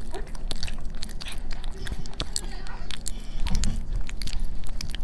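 A puppy's close-up mouth sounds: irregular wet smacks, clicks and chewing noises right by the microphone.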